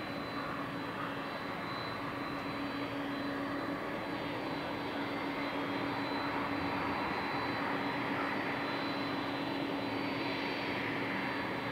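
Boeing 777-200 airliner's jet engines heard from a distance during its landing roll: a steady engine noise with a thin high whine and a low hum in it, swelling slightly through the middle.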